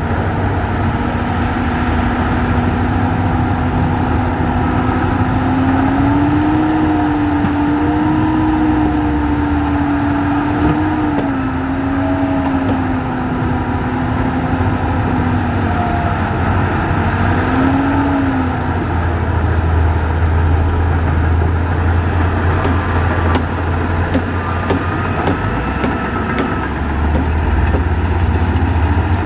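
Heavy dump truck's diesel engine running under load to drive the hydraulic tipper hoist as the fully loaded bed rises. The engine note wavers in pitch and settles lower about two-thirds of the way through.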